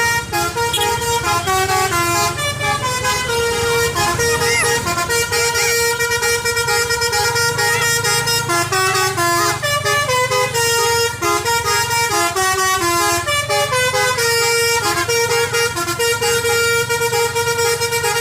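Basuri V3 telolet horn on a bus playing a tune of stepped musical notes, with short breaks between phrases, over the bus engine running.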